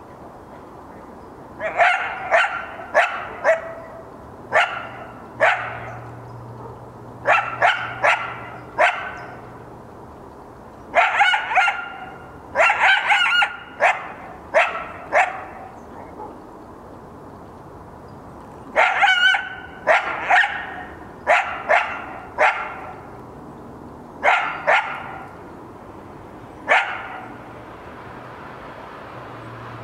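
Yearling male coyote barking in bouts of sharp, high barks, two to four in quick succession and then a pause, over and over. It is upset at dogs nearby.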